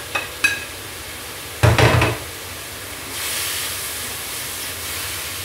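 Spatula scraping sliced carrots off a plate into a hot wok, with a few knocks and a loud clatter about one and a half seconds in. From about three seconds in, a steady sizzle as the carrots are stir-fried in hot oil.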